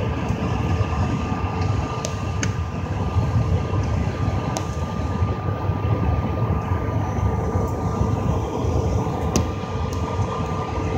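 Cabin noise of a Bombardier CRJ700 regional jet on the ground: a steady low rumble with the even whine of its rear-mounted turbofan engines running. A few light clicks are heard along the way.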